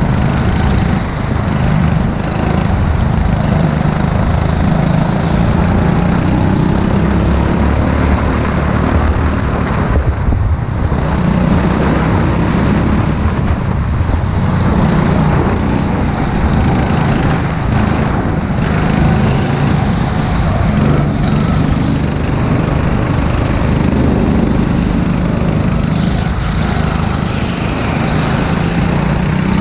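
Onboard sound of a rental go-kart's small petrol engine running hard around a track, its note rising and falling with the throttle through the corners.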